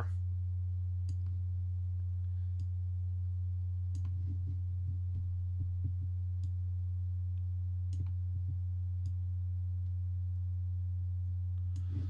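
Steady low electrical hum, with a few faint, short clicks scattered through it.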